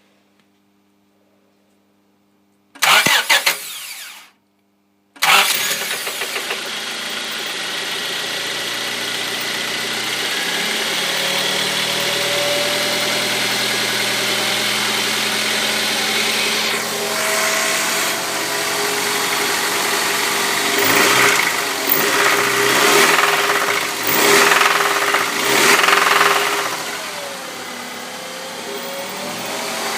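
Honda F23A 2.3-litre four-cylinder engine cranked and started, then running at idle with a series of quick revs near the end. The owner reports a knock in this engine.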